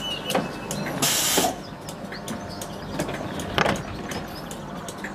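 InterCity 225 Mark 4 coach's power-operated door closing: rapid door-warning beeps stop under a second in, a short loud hiss follows, and the door shuts with a knock about three and a half seconds in. A steady hum from the train runs underneath.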